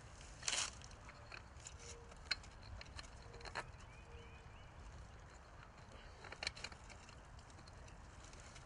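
Faint handling noise: a few scattered clicks and rustles as pump supply wires are coiled and pushed down into the top of a steel well casing.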